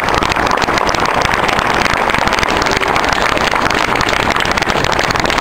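Outdoor crowd applauding, a dense steady patter of many hands clapping.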